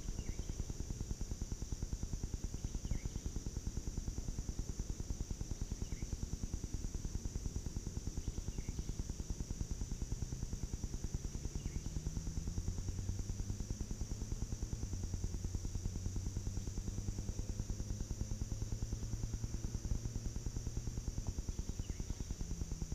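Woodland insects droning steadily at a high pitch, with a short chirp every few seconds, over a fast, even low throbbing; about halfway through, a faint low hum comes in and slowly rises in pitch.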